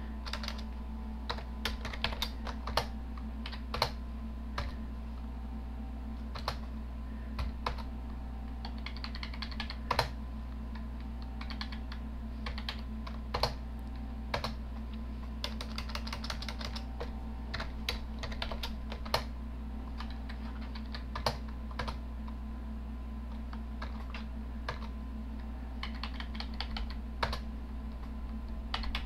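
Computer keyboard keys being pressed: scattered single keystrokes and short runs of quick typing, over a steady low hum.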